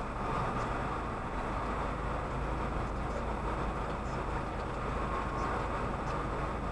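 Steady low rumble of traffic and engine noise, heard from inside a stopped car.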